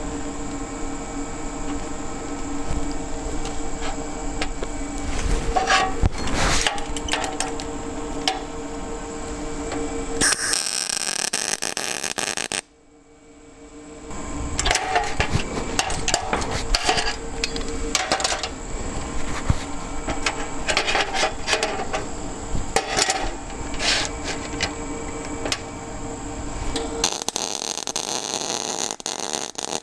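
Lincoln Electric Power MIG 210 MP MIG-welding thin steel tube: the arc crackles and sputters in two long runs, broken off suddenly about a dozen seconds in, with a steady hum beneath.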